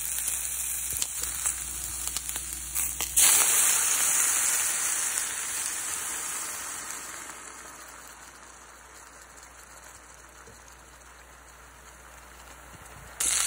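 Longganisa sausages sizzling in a hot pan, then about three seconds in a sudden loud hiss as they boil in water, fading slowly to a quiet bubbling. Near the end, loud sizzling starts again.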